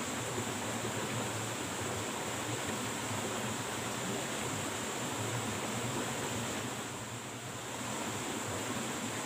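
Steady rush of flowing river water, with a constant high-pitched hiss above it; it dips briefly about seven seconds in.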